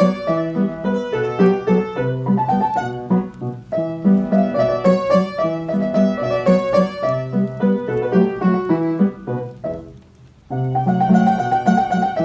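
Piano playing a waltz, a melody over a regular bass-and-chord accompaniment. About ten seconds in the music dies away to a brief lull, then comes back in louder.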